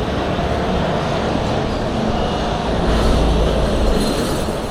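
Steady city street traffic noise, with a deeper rumble from about three to four seconds in.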